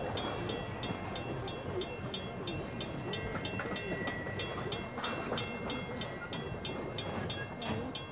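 Passenger coaches rumbling past a grade crossing while the crossing warning bell rings rapidly and evenly.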